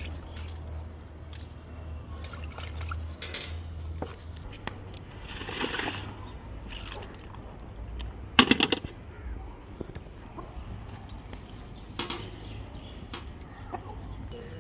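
Hands sloshing rice in a plastic bucket of water, then a steel lid clanks several times in quick succession against a large aluminium cooking pot as it is lifted off, about eight seconds in.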